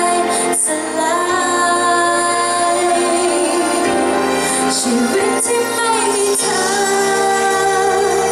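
A female vocalist sings a Thai pop song live into a microphone with a band accompanying, holding long, wavering notes over sustained low notes.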